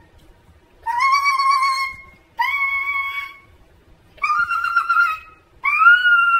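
A high-pitched voice making four long held vocal notes, each about a second long, with short gaps between them.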